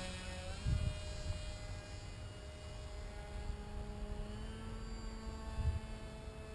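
Electric motor of a SkyEasy foam RC glider whining steadily as the model climbs away, its pitch stepping down about half a second in and shifting again around four seconds. Wind rumbles on the microphone, with short gusts about a second in and near the end.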